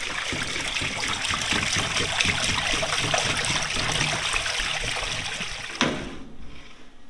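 Water from a hose pouring and splashing into the water tray of a CNC plasma table, between its steel slats. It stops abruptly near the end, leaving quiet room sound.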